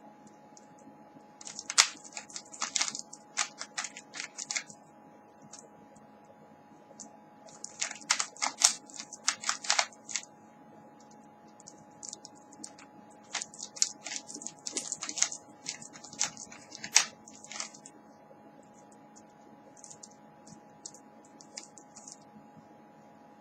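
Plastic Rubik's Cube layers being turned rapidly during a solve: clattering clicks in three bursts of a few seconds each, with pauses between and a few stray clicks near the end. A steady faint hum runs underneath.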